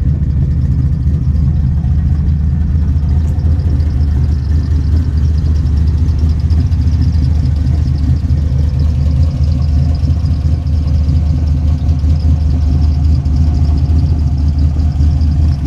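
Chevrolet Monte Carlo's engine idling steadily with a deep, even rumble, the revs holding without change.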